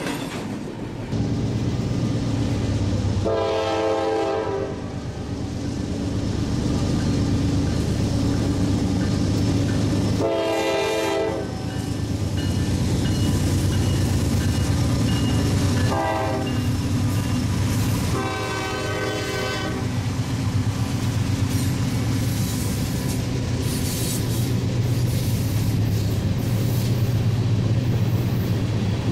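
Norfolk Southern freight train's diesel locomotives passing close with engines running, the horn sounding the long-long-short-long grade-crossing signal, then the freight cars rolling by.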